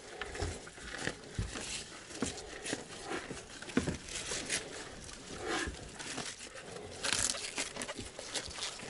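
Young bulls tearing and chewing fresh horseradish leaves: an irregular run of crackling, tearing and crunching, louder for a moment about seven seconds in.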